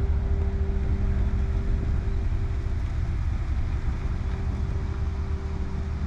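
Ford Super Duty pickup's engine running with a steady low rumble and hum as the truck pulls slowly away.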